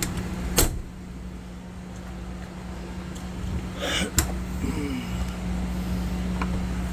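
A steady low engine hum, with two sharp clicks about half a second in and again about four seconds in, as of a compartment door latch.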